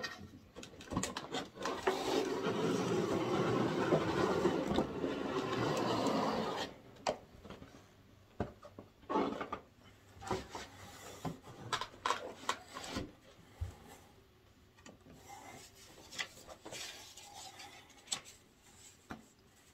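A large clear plastic blister tray being slid out of a cardboard box, rubbing and scraping against the cardboard for about five seconds, then scattered knocks and crinkles as the plastic and cardboard pieces are handled.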